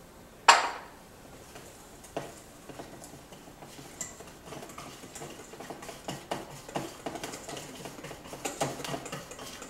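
Wire whisk stirring beer batter in a bowl: one sharp knock about half a second in, then quick, irregular light taps and clicks of the whisk against the bowl.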